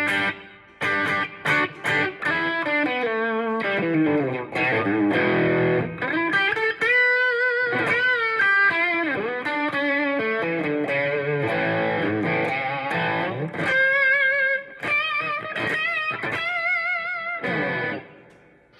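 Electric guitar playing lead lines: quick runs, pitch bends and long held notes with wide vibrato, with short pauses between phrases. The last note dies away near the end.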